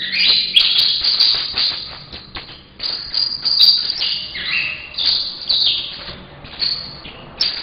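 Young male saffron finch (canário-da-terra) singing: a bird still learning its song, letting out its first phrases. It gives a series of fast, buzzy trills and chips, about five phrases with short pauses between them, some stepping down in pitch.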